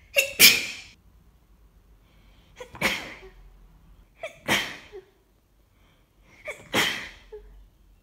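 A person's hayfever sneezing fit: four dry, allergic-sounding sneezes about two seconds apart, each after a short sharp intake of breath, the first the loudest.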